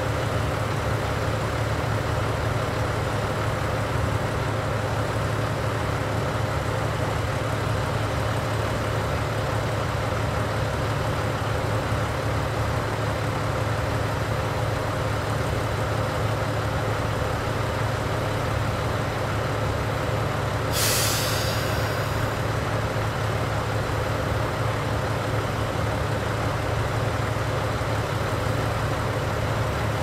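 A JR Central KiHa 85 series diesel railcar idling at a standstill, its Cummins diesel engines giving a steady low drone. About 21 seconds in, compressed air hisses out sharply for about a second, then fades.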